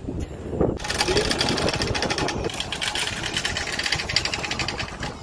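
Trimaran's anchor windlass letting out chain: a fast, steady rattle of chain links running out, starting about a second in and going on until near the end.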